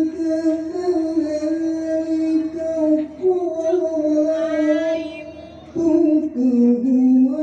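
A high voice singing long, slowly wavering held notes, amplified through a live PA sound system. It drops briefly about five and a half seconds in, then comes back on a lower note.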